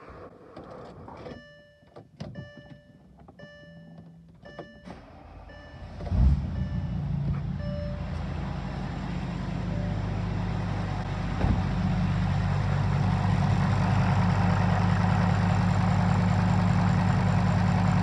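Dashboard warning chimes beeping about twice a second with the ignition on, then the Volkswagen Touareg's V10 TDI turbodiesel engine starting about six seconds in and settling into a steady idle, getting louder later on. The engine has a history of hard starts and misfires that is being diagnosed by checking fuel supply pressure.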